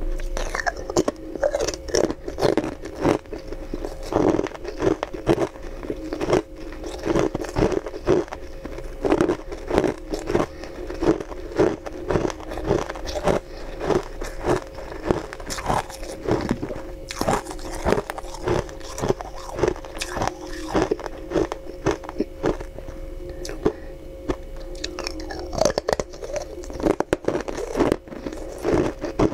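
Frozen ice being bitten and crunched between the teeth, then chewed: a dense, irregular run of sharp crunches.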